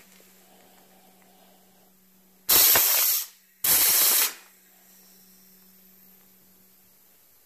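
Homemade CO2-powered pneumatic can crusher cycling: two loud blasts of gas hissing out of the cylinder's valve about a second apart, as the ram drives down to flatten a can and then retracts.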